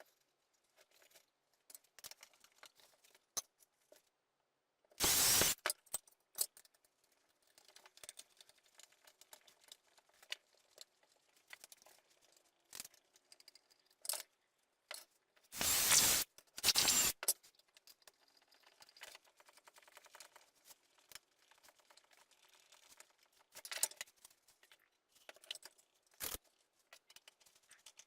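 Small clicks, taps and scrapes of wooden parts and tools being handled during assembly of a wooden bird table, with three short harsh bursts of noise, one about five seconds in and two close together near the middle.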